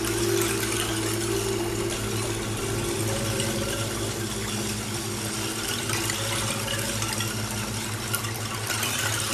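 Steady rushing water, a speckled hiss throughout, over a low sustained musical drone.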